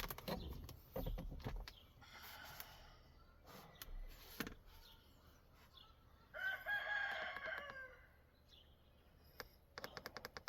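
A single drawn-out animal call of about a second and a half, about six seconds in, with a quick run of even clicks near the end.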